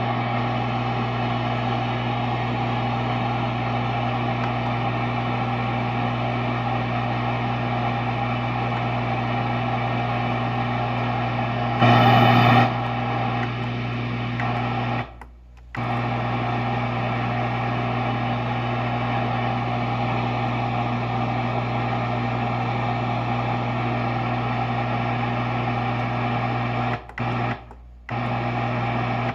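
Steady hum and hiss from a Peavey 6505+ combo amp with a Zoom G1X Four multi-effects pedal in its effects loop, no guitar being played. It swells louder for about a second just before halfway, then cuts out briefly, and cuts out twice more near the end.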